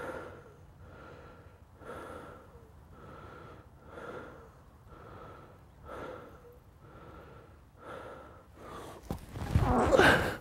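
A man panting hard, about one heavy breath a second, out of breath from rolling down a grassy hillside. Near the end, louder rustling and thumps as his body tumbles through the grass.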